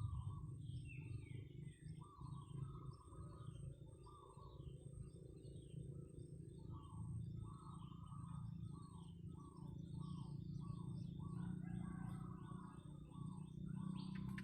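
Several birds calling: a repeated short lower call with quick higher chirps over it, above a steady low background rumble.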